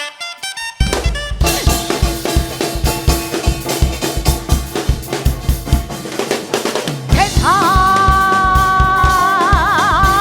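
Live fusion gugak band music: a light picked melody gives way, about a second in, to a drum kit and full band playing a steady beat. About seven seconds in a singer comes in with a long held note with wide vibrato.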